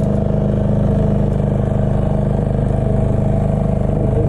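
Outboard motor running steadily at slow trolling speed, an even drone that holds its pitch throughout.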